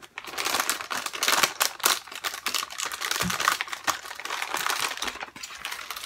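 Clear plastic parts bag crinkling and rustling as it is handled and pulled open, with many small crackles and clicks.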